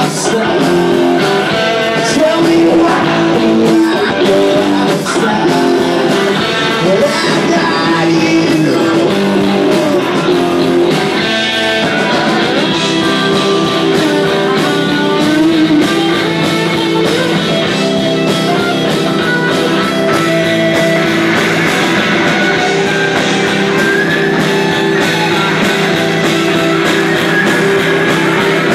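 Live rock band playing a song: electric guitars and drums, with a voice singing over them.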